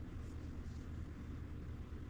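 Steady low background hum with a few faint, light ticks.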